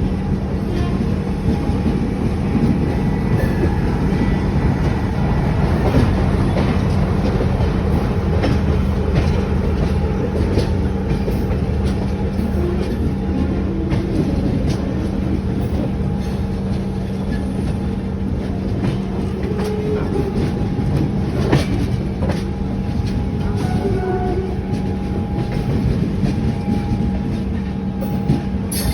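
Indian Railways passenger train running: a steady rumble and hum of the moving coaches, with wheels clicking over rail joints and a few sharper knocks.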